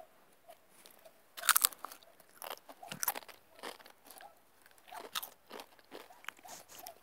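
Pringles crisps being bitten and chewed: a run of irregular crunches, the loudest about a second and a half in.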